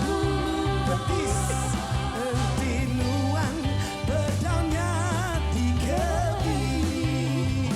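Live band playing a pop song with a singer: a wavering vocal melody over a steady bass line and cymbals.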